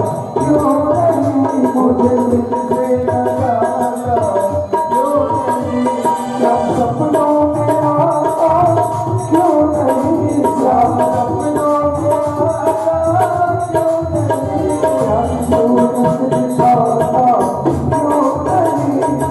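Instrumental interlude of a Hindi Krishna bhajan: a melody instrument plays a wandering tune over a steady, rhythmic tabla accompaniment, with no singing.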